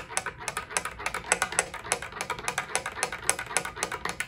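A spoon stirring briskly in a glass mug of hot chocolate, clinking rapidly against the glass several times a second, stopping just at the end.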